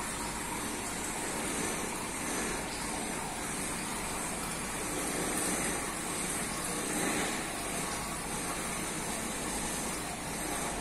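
Steady rushing of aquarium water circulation, the filter pump and running water giving an even hiss.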